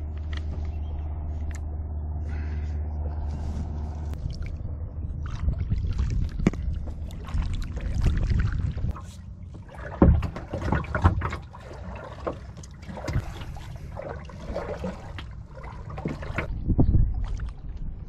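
Kayak paddling: a double-bladed paddle dipping and pulling through lake water in uneven strokes, with splashes, drips and a few sharp knocks, the loudest about ten seconds in and near the end. A steady low hum fills the first few seconds.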